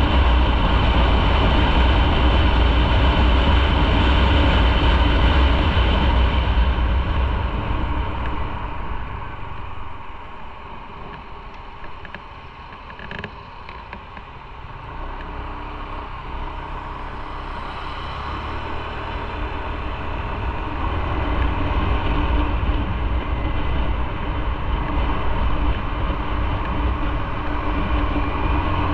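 Motorcycle riding, with engine rumble and wind and road noise on the on-board microphone. The sound dies down about a third of the way in, with a single click near the middle, then builds up again.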